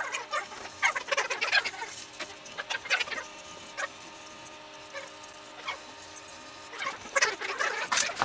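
Hand scraping of a cast-iron 676P milling-machine slide with a scraper: a run of short scratchy strokes, a few scattered strokes in the middle, then another quick run near the end.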